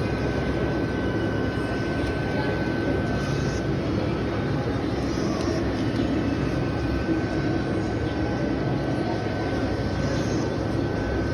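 Cotton candy vending machine running while it spins the floss: a steady mechanical whir with a thin, constant high whine.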